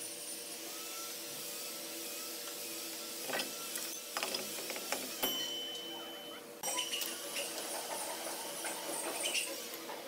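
Steel cutter heads and the spindle of a spindle moulder being handled by hand, giving a few sharp metal clinks and knocks over a steady background hum.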